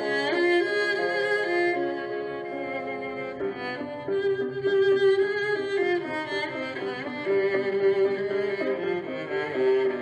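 Background music on bowed strings, violin and cello, playing slow held notes.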